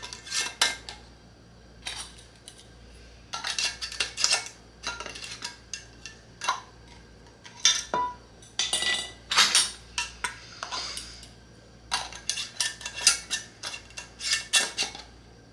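Metal canning lids and screw bands clinking and scraping against glass jars as the bands are screwed on, in several separate bursts of clicks with short pauses between them.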